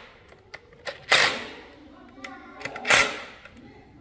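Ratchet wrench being worked on engine bolts: two strokes of quick clicking, under two seconds apart, with a few light metal clicks between them.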